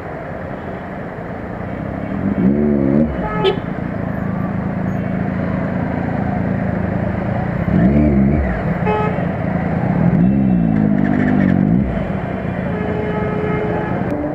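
Slow, dense city traffic: motorcycle and car engines running at low speed, with vehicle horns honking several times, briefly about two to three seconds in and near eight seconds, and longest from about ten to twelve seconds in.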